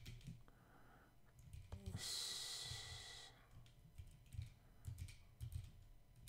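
Faint typing on a computer keyboard, scattered key clicks, with a louder hiss lasting just over a second about two seconds in.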